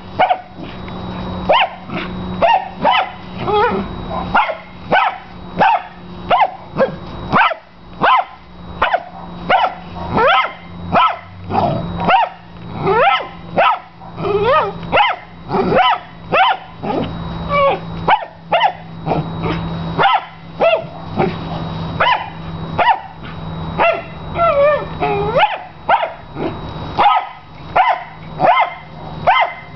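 Miniature Australian shepherd barking at its big tennis ball over and over in short, piercing, high-pitched barks, about one to two a second.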